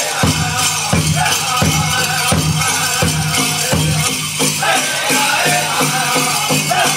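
Powwow drum group singing a chicken dance song, voices together over a steady big-drum beat of about three strikes every two seconds, with the jingling of dancers' bells on top.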